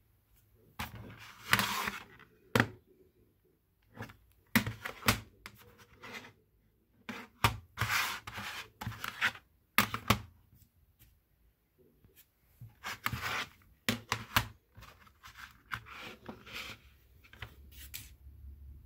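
A plastic CD jewel case and its cellophane wrapping being handled: irregular crinkling and rubbing of plastic with sharp clicks of the case, which is opened near the end.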